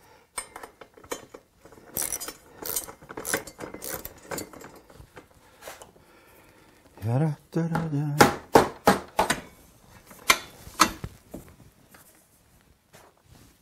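Steel tubes of a table saw's folding stand clinking and knocking against each other and the saw's base as they are fitted together, in a run of irregular sharp clanks. A short vocal sound comes about seven seconds in.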